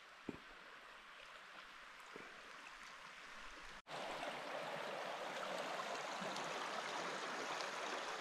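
Steady rushing of an open, unfrozen river's flowing water, faint at first and jumping much louder about four seconds in.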